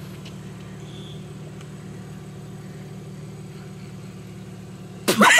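A vehicle engine idling with a steady low hum. Just over five seconds in, a sudden loud burst of a woman's laughter breaks in.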